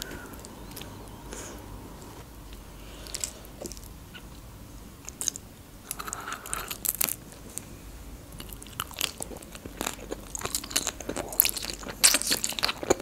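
Close-miked eating of lasagna: a few faint clicks of knife and fork at first, then from about six seconds in, bites and chewing with many small wet mouth clicks that grow denser near the end.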